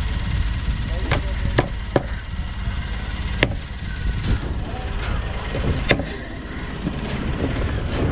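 Large curved knife chopping through a fish on a wooden block: a handful of sharp, separate chops a second or more apart, over a steady low rumble.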